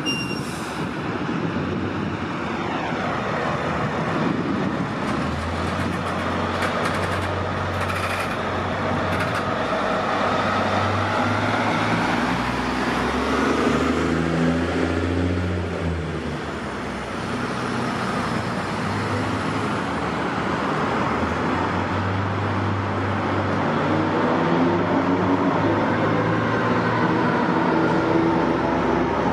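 Fire trucks pulling out and driving off: heavy engines running and accelerating, over a steady road and traffic hum. A pitched tone glides up and down over the engines at times.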